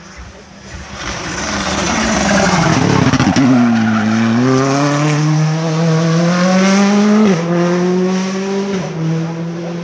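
Rally car passing close at speed: a loud rush as it arrives, then its engine note climbs steadily as it accelerates away out of a tight bend, changing up a gear about seven seconds in and again about a second and a half later.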